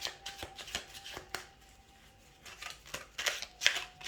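A deck of reading cards being shuffled by hand: a run of short crisp card snaps and slides that eases off about halfway through, then picks up again with louder snaps near the end.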